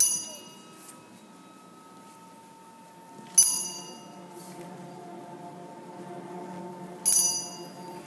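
A small bell struck three times, about three and a half seconds apart, each a short bright ring that dies away quickly, over faint background music.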